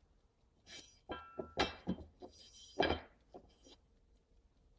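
A few knocks and clinks from handling, some ringing briefly with a short metallic tone, spread over the first three and a half seconds.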